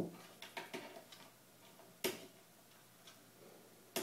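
A cat's claws clicking and scrabbling on a ceramic tile floor as it pounces and rolls after a laser dot: three sharp clicks about two seconds apart, with lighter taps between them.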